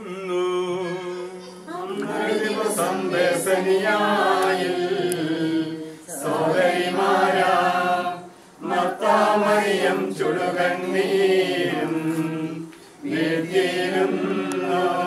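A group of voices singing a slow Malayalam Christian funeral hymn about Martha and Mary weeping for their brother Lazarus, in long held phrases with short breaths between them.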